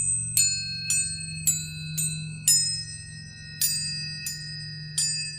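Tuning forks struck one after another, about nine strikes at different pitches, most roughly half a second apart with a longer gap near the middle, each leaving a high ringing tone that lingers over a steady low hum.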